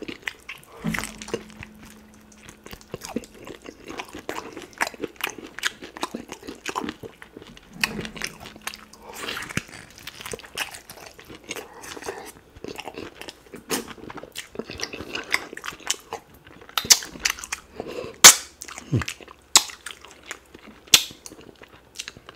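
Close-miked eating: chewing and biting on duck meat soaked in slimy ogbono soup, a dense run of wet smacks, clicks and crunches, with the sharpest snap about eighteen seconds in.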